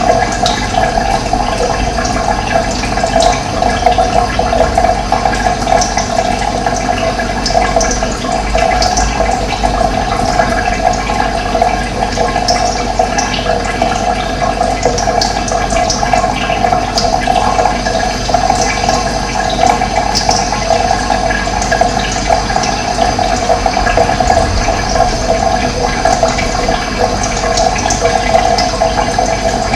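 Steady rush of running water, with occasional short, high bird chirps over it.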